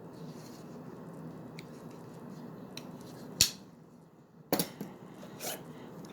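Hand tools being handled and taken out of a tool pouch: a soft rustle with a few light clicks, a sharp knock about three and a half seconds in, then a short run of knocks and rattles near the end.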